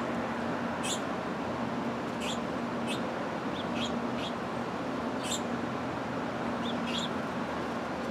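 Small birds chirping: about seven short, high-pitched chirps at irregular intervals over a steady background hiss.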